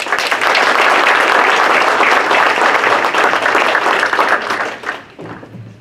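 Audience applauding: dense clapping that begins at once and dies away after about five seconds.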